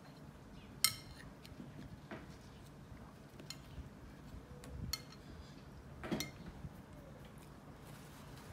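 Metal fork clinking against a ceramic plate a few times while eating, the sharpest clink about a second in.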